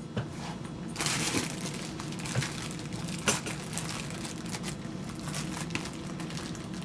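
Hands working a wet leather knife sheath threaded on a belt: steady rustling and crinkling from about a second in, with a few light knocks.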